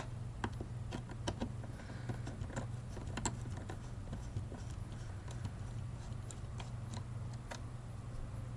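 Small irregular clicks and taps of a T10 Torx screwdriver working screws out of a car side-mirror's plastic housing, over a steady low hum.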